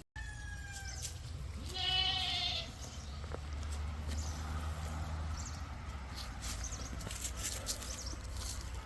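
Goat bleating: a loud, wavering call about two seconds in, after a shorter call at the start. A low rumble and scattered clicks and rustles run underneath.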